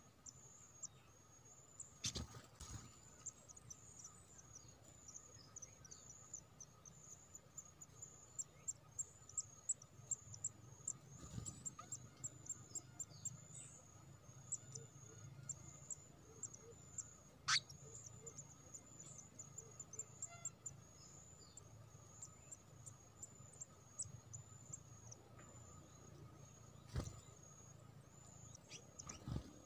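Faint, high-pitched insect chirping that repeats many times a second, with a few sharp clicks scattered through it.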